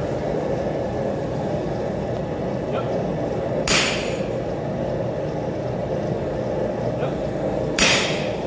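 Sledgehammer striking a handled top tool held on a red-hot axe blank on an anvil: two sharp metallic clangs about four seconds apart, each ringing briefly, with a few light taps between. A loud steady rush of shop noise runs underneath.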